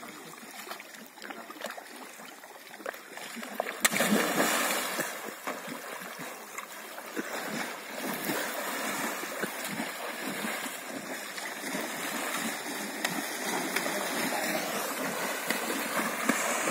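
Horses wading and splashing through river water. About four seconds in, a person standing on a horse's back jumps into the river with a loud splash, followed by continued sloshing and splashing.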